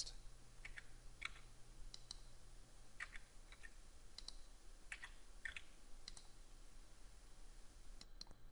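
Faint, scattered clicks of a computer mouse and keyboard keys, one or two at a time, as cell values are edited, over a low steady hum.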